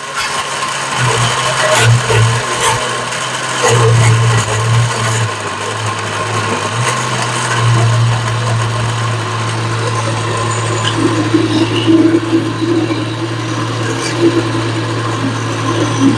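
Countertop blender running, grinding hard vegetables such as carrots in water, with sharp clicks and rattles as the pieces strike the jar. The motor is uneven for the first few seconds and then runs steadily.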